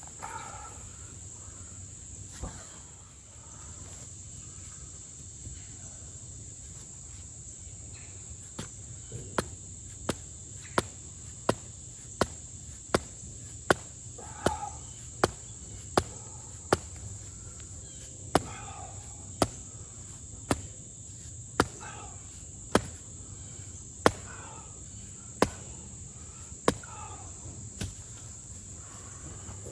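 Hammer strikes, a steady run of sharp blows starting about 9 s in, first about one every 0.7 s, then slowing to about one a second, over a steady high drone of insects.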